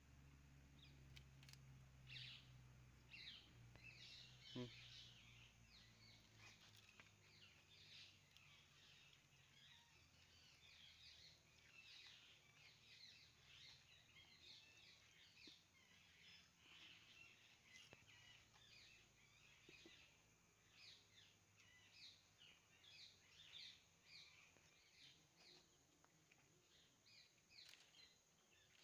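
Faint birds chirping: many short, high chirps repeating throughout.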